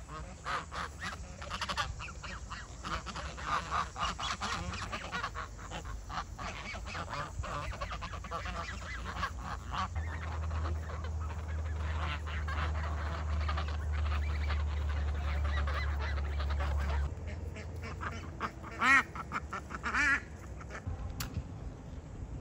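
Farmyard fowl calling, a dense stretch of short calls followed near the end by two louder, drawn-out calls.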